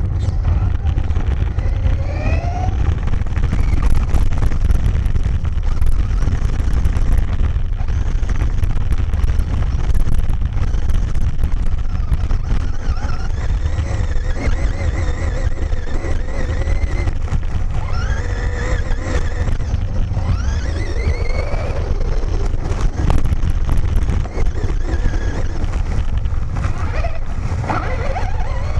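Traxxas Slash VXL RC truck heard from a camera mounted on it: a heavy rumble from the chassis and tyres running over gravel and grass. The brushless electric motor's whine rises and falls in pitch several times as the throttle changes.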